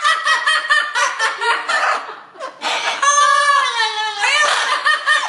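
High-pitched laughter in rapid, repeated cackles, with a long falling squeal about three to four seconds in.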